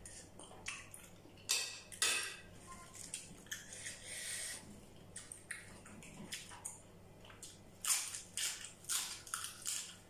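Close-miked eating sounds: wet chewing and mouth clicks on steamed scallop in spicy seafood dipping sauce, with a run of crisp, crunchy bites near the end as lettuce dipped in the sauce is eaten.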